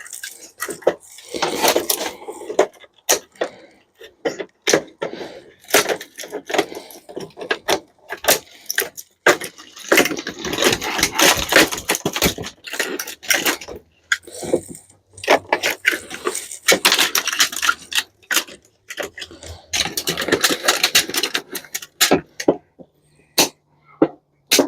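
Metal parts of a dishwasher clinking, rattling and knocking as it is taken apart by hand, with irregular sharp clicks and stretches of scraping.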